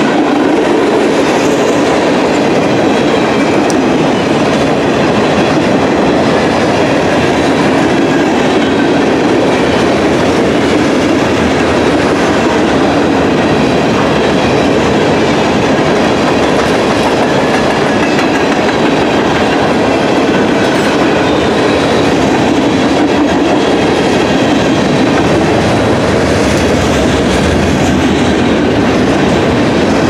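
Freight cars rolling past, steel wheels on the rails making a steady, loud rumble with no break.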